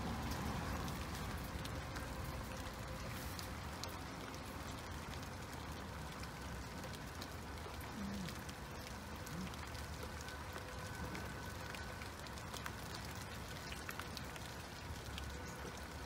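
Steady rain falling, with scattered drops ticking close by.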